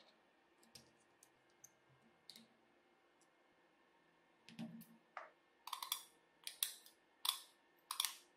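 Scissors cutting a sheet of wire mesh: a run of sharp snips, the loudest sounds, in the last three seconds. Before that come a few faint clicks of small parts being handled and a soft thump.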